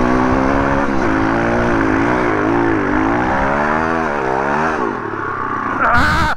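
MRF 140 RC pit bike's 140 cc four-stroke single-cylinder engine revving hard under load on a steep snowy hill climb, its pitch rising and falling with the throttle. About five seconds in it sags, then a brief loud rev near the end cuts off suddenly as the climb fails and the bike goes over.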